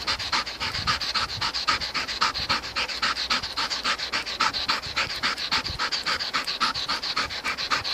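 A dog panting rapidly and evenly, open-mouthed, while trotting at heel.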